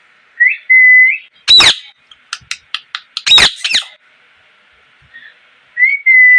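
Indian ringneck parrot calling: a short steady whistle, then two loud harsh screeches about two seconds apart with short sharp chirps between them, and another steady whistle near the end.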